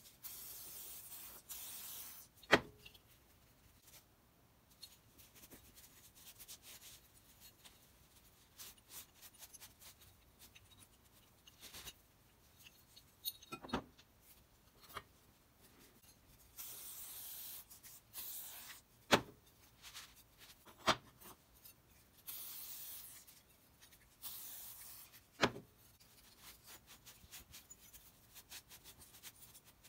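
A cloth rag rubbing over the metal parts of an old Stanley No. 5 bench plane in spells of a second or two, with about five sharp clacks as cast-iron and steel parts are set down on the wooden workbench.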